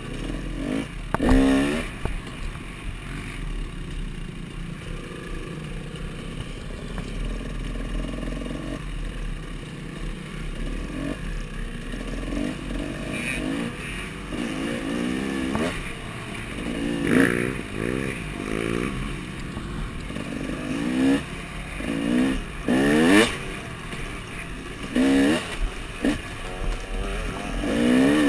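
2014 KTM 300 XC two-stroke dirt bike engine under way, revving up and down on the throttle. Its pitch sweeps up sharply again and again, more often and louder in the second half.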